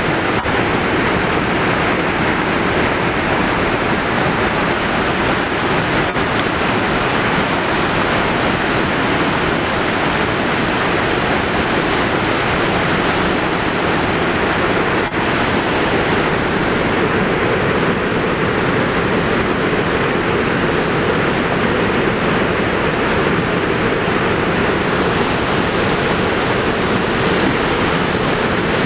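Wide river waterfall pouring over a rock ledge: a steady, loud, continuous rush of falling water.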